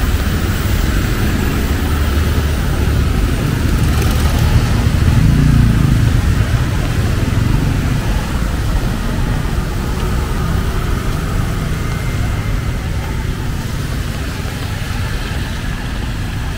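Street traffic on a wet road: cars, motor scooters and tuk-tuks driving past with a steady engine rumble and tyre hiss, swelling about five seconds in as a vehicle passes close.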